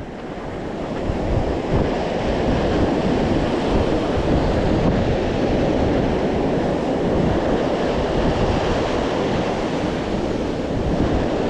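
Ocean surf washing in over the shallows and up the beach in a steady rush, swelling over the first second or two, with wind rumbling on the microphone.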